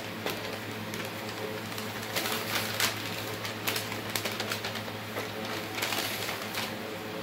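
Brown paper bag crinkling and rustling as it is handled and folded, in several short spells, over a steady low hum.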